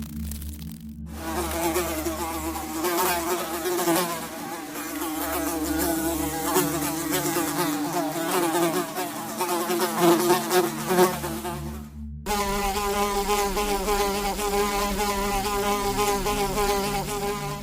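Buzzing of a flying insect, a continuous wavering drone. It breaks off about twelve seconds in and a second, steadier buzz starts straight after.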